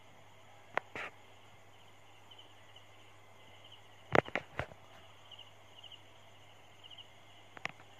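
Crickets chirping in short pulsed trills over a quiet background, broken by a few sharp knocks, the loudest cluster about halfway through.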